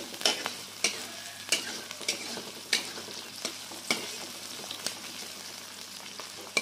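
Chopped chillies, shallots and garlic sizzling in hot oil in a wok, stirred with a metal spatula that clicks and scrapes against the pan about every half second to a second over the steady hiss.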